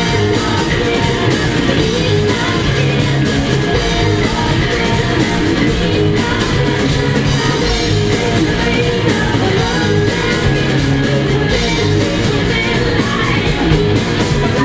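Live band music: a woman singing into a microphone over loud drums and instruments.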